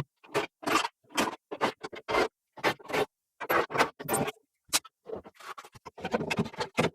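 Repeated scraping strokes, about two a second, coming quicker and more ragged near the end: dirt and grime being scraped out from under the seat of a V8 stock car.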